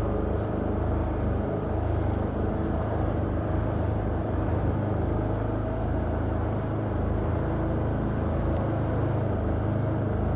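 Can-Am Outlander ATV engine running at a steady, low pitch while riding along a trail.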